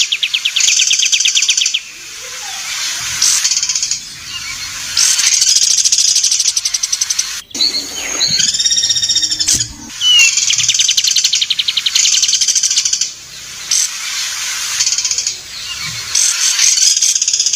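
Songbird singing loud, rapid trills in bursts of one to three seconds, with a harsher, buzzy call about halfway through.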